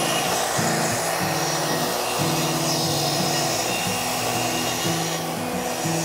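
Plunge-cut track saw ripping a plywood sheet, with a dust extractor running. Background music plays over it.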